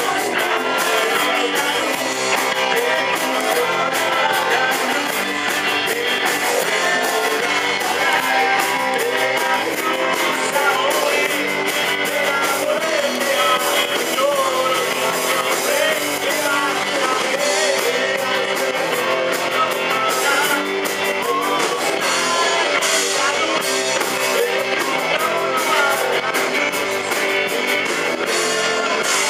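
Live rock band playing: several electric guitars and a drum kit with cymbals, with male vocals singing over them.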